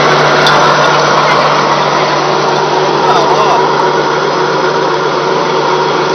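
Flat die pellet mill running steadily while pressing animal feed into pellets: a loud, even machine hum with a strong low steady tone and several higher steady tones.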